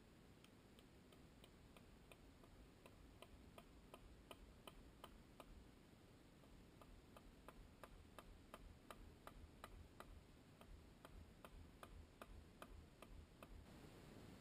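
Faint, regular clicking, about three clicks a second, starting about half a second in, over a quiet background hiss.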